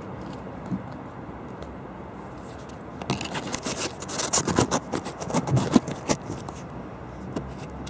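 Fireworks going off: a quick, dense series of cracks and pops from about three seconds in until about six seconds, over a steady low rumble.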